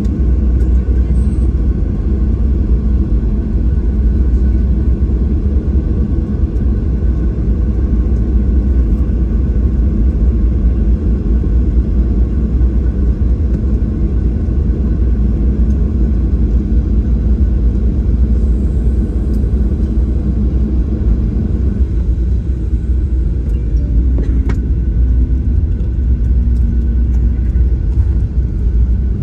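Cabin noise inside a KLM Boeing 737-700 on the ground after landing: a steady low rumble from its CFM56-7B engines at idle, heard through the fuselage.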